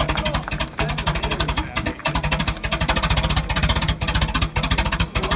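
An early vintage car engine idling, its firing pulses coming as a rapid, steady beat.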